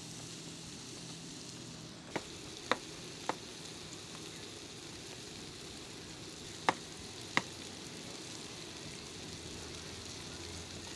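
Burger patties sizzling steadily on the griddle of a Coleman two-burner propane camp stove. Five sharp clicks cut through the sizzle, three about two to three seconds in and two more past the middle.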